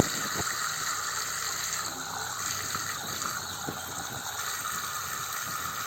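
Water running and splashing steadily from a small homemade fountain, with small scattered drips and splashes.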